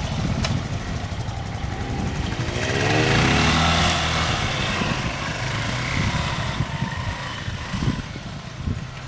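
Vintage trials motorcycle engine pulling under load. It revs up and falls back once, about two to four seconds in, as the bike climbs a steep bank, then pops and burbles at low speed.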